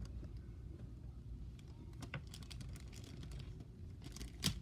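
Scattered small clicks and crinkles of hands working tape and a plastic-bag marble mesh, with a sharper click about two seconds in and another near the end.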